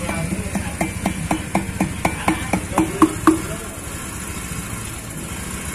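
A quick run of about a dozen sharp, slightly ringing knocks, roughly four a second, stopping a little over three seconds in, over a steady low hum.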